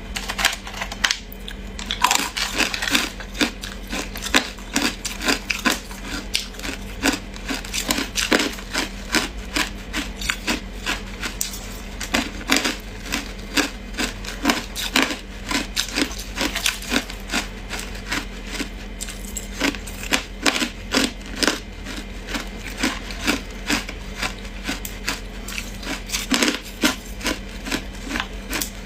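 Ice being bitten and chewed close to the microphone: a rapid, irregular run of sharp crunches and cracks, one after another.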